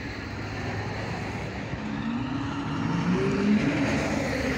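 A motor vehicle driving by on the road, its engine and tyre noise growing steadily louder.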